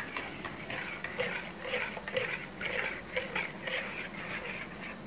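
Stainless steel wire whisk beating a runny egg, melted butter and milk mixture in a mixing bowl: quick, rhythmic swishing strokes, about two to three a second.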